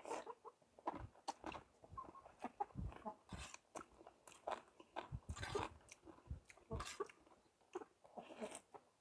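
A man eating khanom jeen rice noodles: close-up slurping and chewing, in irregular short smacks with a few longer slurps.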